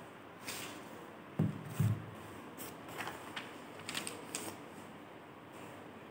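Sheets of a printed paper being handled and turned over, with short paper rustles and crinkles. Two soft thumps come between one and two seconds in.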